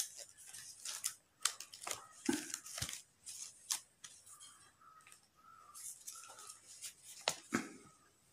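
Folded paper cut-out being opened out by hand: irregular crisp rustles and crackles of the paper sheet.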